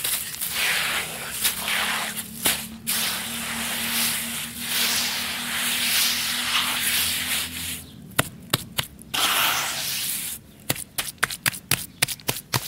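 Grainy, crumbly red dirt poured and crumbled by hand into a bowl, giving a gritty hiss that swells and fades with each handful. From about ten seconds in, quick, sharp crackles as hands press into the crumbly dirt.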